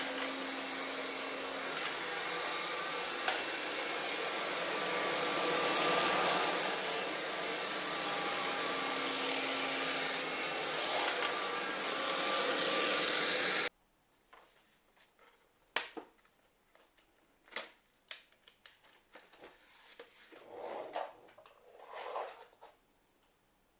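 Philips FC6726/01 cordless vacuum cleaner running steadily, then stopping abruptly about 14 seconds in. After it stops come scattered clicks and light knocks.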